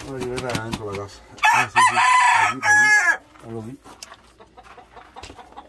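Gamecock rooster crowing once, a loud, harsh crow of nearly two seconds starting about a second and a half in.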